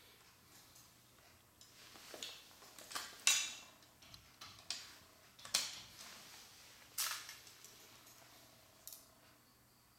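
Small hard pieces of a Rube Goldberg roller-coaster kit clicking and knocking together, about seven irregular sharp knocks. The loudest comes a little over three seconds in and rings briefly.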